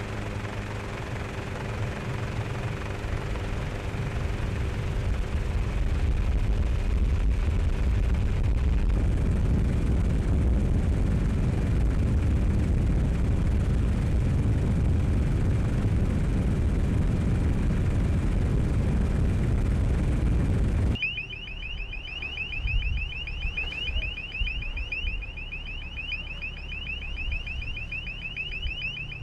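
Loud, steady rush of wind and water with a low engine hum from boats at sea. About 21 seconds in it cuts abruptly to a high electronic alarm of rapid, repeating rising chirps over a lower engine rumble.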